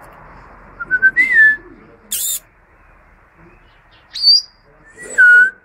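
A person whistling short pure notes to a European goldfinch, which answers with brief high chirps and calls. The whistles come about a second in and again, loudest, near the end, with the bird's chirps in between.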